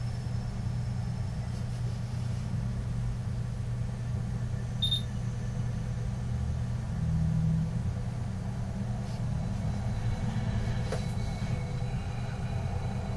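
A steady low rumble, with a couple of faint clicks about five and eleven seconds in.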